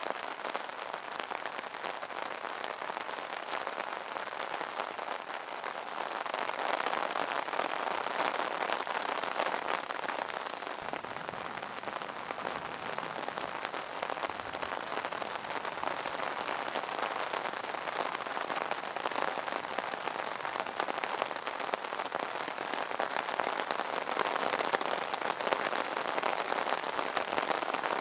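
Steady rain falling on an umbrella canopy: a dense hiss of countless small drop taps that swells a little twice, about a quarter of the way in and again near the end.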